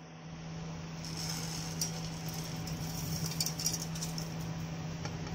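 Dry whole spices (cumin, fennel, black peppercorns, cloves) sliding off a plate and rattling into a steel grinder jar, a patter of small clinks about a second in that grows busiest a little past the middle, over a steady low hum.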